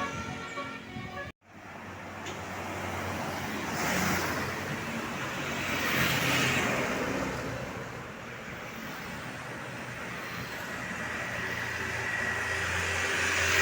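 Road traffic on a hill road: vehicles pass with swells of engine and tyre noise about four and six seconds in. A heavy vehicle's engine drone, with a faint steady whine, builds near the end.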